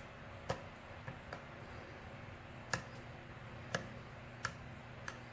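Small sharp clicks of a lock pick working the wafers of a wafer lock under tension, about seven at irregular intervals, the clicks of wafers being lifted and setting.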